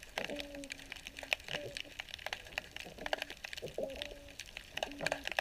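Underwater sound picked up through a GoPro's housing at night: a dense, steady crackle of sharp clicks and snaps, with short low hums recurring roughly once a second.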